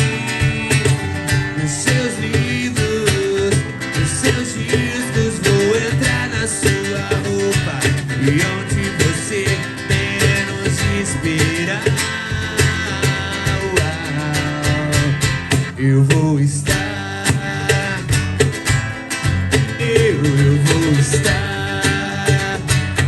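Band playing an instrumental passage of a pop-rock song, a guitar lead with sliding, bending notes over bass and a steady drum beat.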